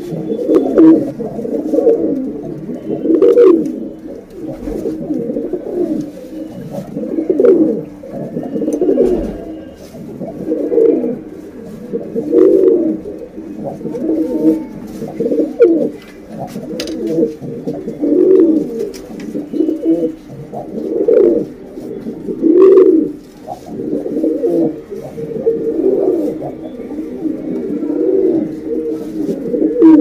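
Domestic pigeons cooing continuously, several calls overlapping and swelling every second or so. It is offered by the uploader as a female pigeon's call that lures males.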